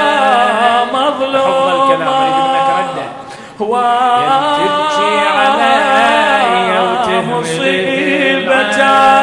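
A man's unaccompanied voice chanting a Shia lament (nai) in long, wavering drawn-out phrases, breaking off briefly about three seconds in and then carrying on.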